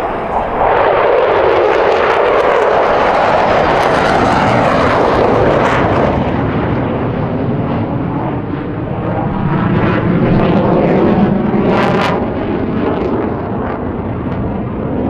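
F-16 Fighting Falcon fighter jets flying past, their jet noise loud throughout. The noise sweeps in pitch over the first few seconds as a jet goes by, and swells again about ten seconds in.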